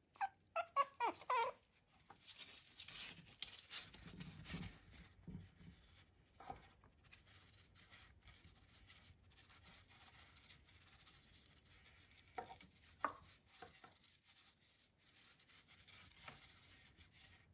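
Shih Tzu puppy whimpering: a quick run of short, high, falling squeaks in the first second and a half, then a few single whimpers later on. Soft rustling between the calls.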